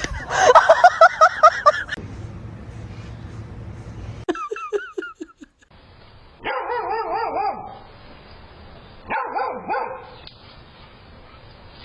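Dog vocalising: a quick run of short yips, a few higher squeaky whines, then two longer whines that waver up and down in pitch.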